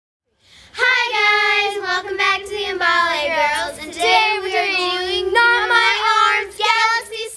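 Young girls singing together, loud, with held notes and sliding pitch, starting about half a second in.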